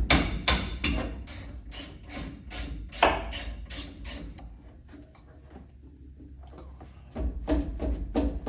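Hand ratchet clicking as it backs out a brake caliper bolt, in strokes about three a second. It falls quieter past the middle, then picks up again with quicker clicks near the end.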